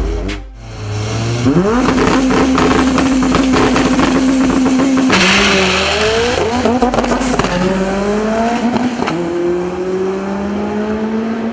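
Turbocharged Honda drag car engine revving up and held at steady high revs for a few seconds. About five seconds in comes a sudden loud noisy burst, then the engine pitch climbs and drops back twice as it pulls through the gears under hard acceleration.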